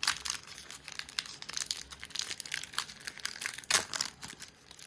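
Foil booster-pack wrapper of a Pokémon trading card pack being torn open and crinkled by hand. The crackling comes in irregular bursts, loudest at the start and again near the end.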